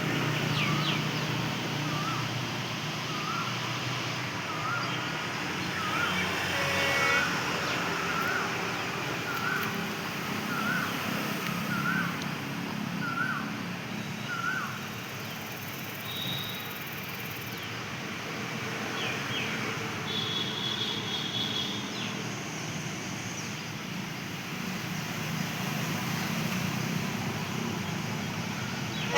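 A bird calling over and over, a short hooked note about once a second, through the first half. Under it runs a steady low rumble of distant traffic and trackside ambience.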